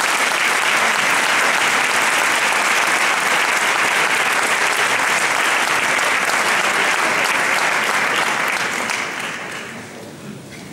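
Audience applauding steadily, then dying away over the last two seconds or so.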